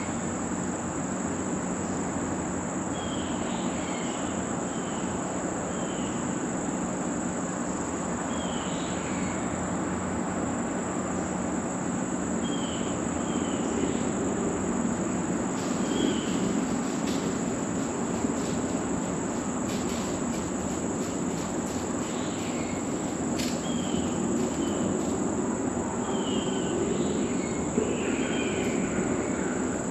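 Steady, high-pitched drone of insects in late-summer woods, with brief chirps scattered throughout and a few faint clicks in the middle.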